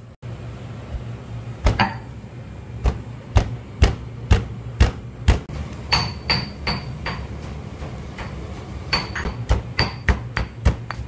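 Pestle pounding dry-roasted cumin seeds in a mortar: repeated sharp strikes at roughly two a second, some ringing briefly, with a short pause about two-thirds of the way through.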